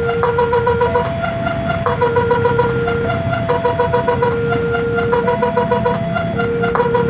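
Railway level-crossing electronic warning siren malfunctioning: a stuttering cycle of rapid beeps and held tones at several pitches, repeating about every two seconds. It sounds over a low rumble of vehicle noise.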